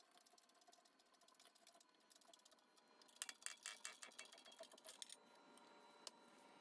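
Small metal parts clicking and rattling in a quick flurry for about two seconds, over a faint steady whine.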